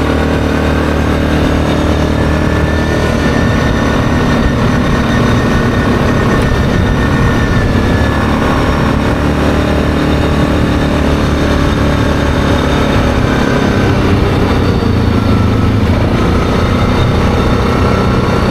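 ATV engine running steadily at cruising speed on a gravel road, its tone shifting slightly about three-quarters of the way through.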